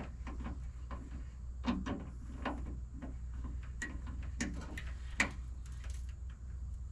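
Scattered, irregular clicks and light knocks of hand tools and parts being handled, over a steady low hum.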